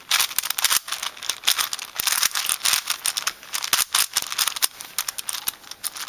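5x5 Rubik's cube being turned quickly by hand: a continuous run of rapid plastic clicks and rattles as its layers turn.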